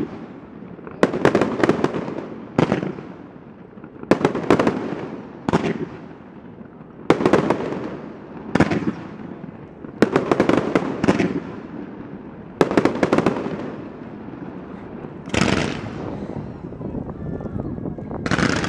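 Fireworks going off: a dozen or so bursts of rapid bangs and crackling, one every second or two, each dying away before the next. Near the end come two softer, smoother bursts.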